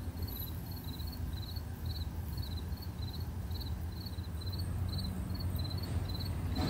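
A cricket chirping steadily, about two short high chirps a second, over a low steady hum.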